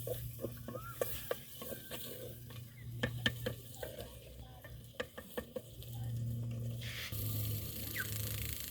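Stirring a pot of onions and tomatoes frying in coconut oil: the utensil clicks and scrapes against the pot many times over the first five seconds or so, with a faint sizzle. From about seven seconds in the frying turns to a steadier hiss, over a steady low hum.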